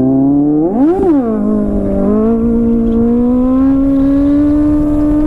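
Kawasaki Z800's inline-four engine under way. The revs rise to a peak about a second in, fall back, then climb slowly and steadily as the bike pulls. Wind rumble on the helmet microphone runs underneath.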